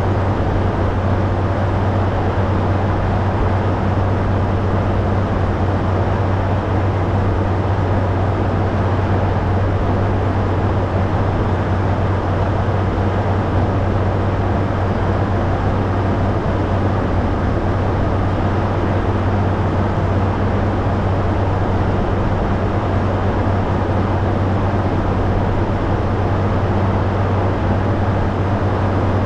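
Caterpillar motor grader's diesel engine running at a steady speed, a constant low drone with no change in pitch or load.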